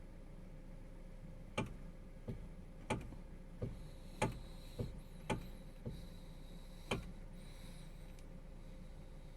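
Kia/Hyundai steering column knocking, about nine sharp clicks over five seconds, irregularly spaced: the sign of a worn, cheap rubber bushing in the column.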